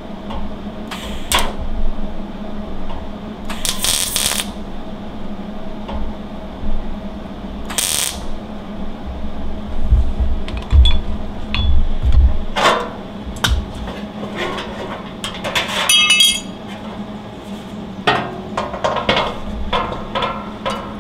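MIG welder welding a hole shut in thin sheet-steel engine tin, turned way down because the metal is so thin: three short crackling bursts about a second, four seconds and eight seconds in, over a steady hum. After that come knocks and metallic clinks.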